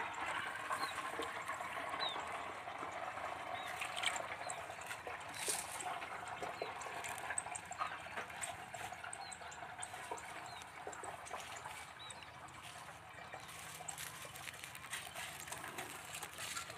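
Well water running from a garden hose into a plastic 19-litre water bottle, a steady trickle as the bottle fills.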